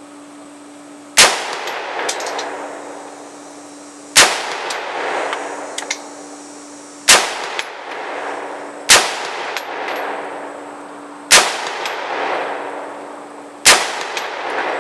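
Six single gunshots from a handgun or rifle, fired a few seconds apart at an uneven pace. Each shot is a sharp crack followed by a long echoing tail.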